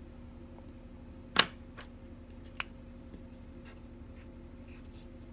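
Felt-tip marker drawing on paper, with faint scratching and small taps and one sharp click about a second and a half in, a smaller one a second later. A steady low hum runs underneath.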